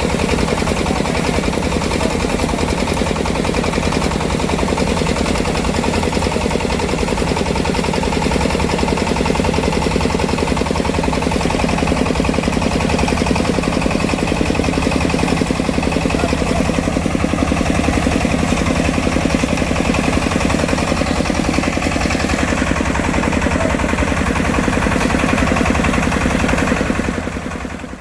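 Engine-driven harvest machinery running steadily with a fast, even chugging, fading out near the end.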